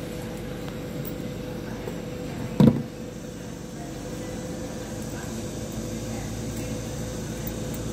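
A single short, dull thump about two and a half seconds in, over a steady background hum with a faint constant tone.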